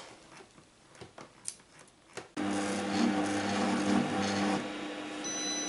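Compact Cook Elite kitchen robot kneading bread dough at low speed. Its motor starts suddenly about two seconds in and runs as a steady hum with a rasping churn from the dough. Near the end a high beep sounds as the timed kneading cycle finishes.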